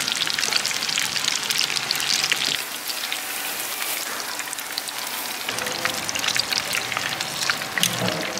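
Battered vegetables and green chili peppers deep-frying in a wok of hot oil: a dense, steady sizzle with constant small crackles and pops.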